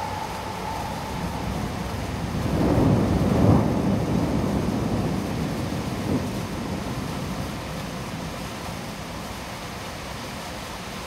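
Heavy rain falling steadily, with a rumble of thunder that swells a couple of seconds in, peaks and dies away over the next few seconds.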